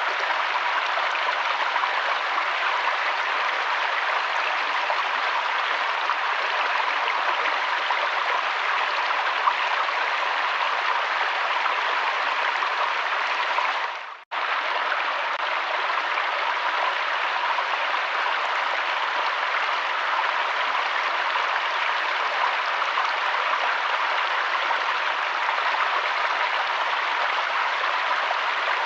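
Steady rushing of a flowing river or stream. It fades out briefly about halfway through and snaps straight back in.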